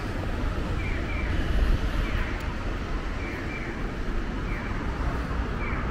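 Town street ambience with a steady low rumble of traffic. Short, high falling chirps repeat about once a second over it.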